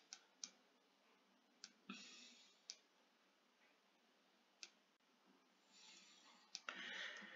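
Faint computer mouse clicks, about seven scattered irregularly, against near silence, with a short soft hiss near the end.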